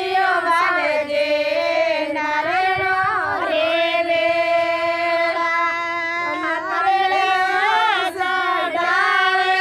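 A high female voice singing a slow melody, with long held notes that slide between pitches.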